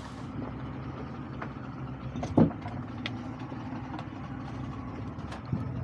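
Boat's outboard motor idling steadily, with a single sharp knock about two and a half seconds in.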